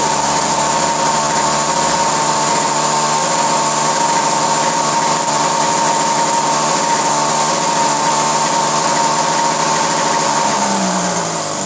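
ASP 56 model aircraft glow engine spinning its propeller at steady high speed, a loud, high-pitched buzz, on its first run on a test bench. Near the end it slows a little and gets slightly quieter.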